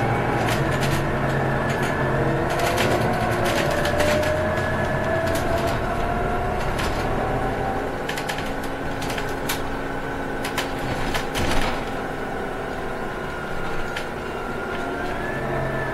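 Cabin of a Scania Citywide CNG city bus on the move: the natural-gas engine and driveline running, with a whine that rises slowly in pitch over the first half as the bus gathers speed. Interior panels and fittings rattle and click throughout, with one louder knock about three-quarters of the way through.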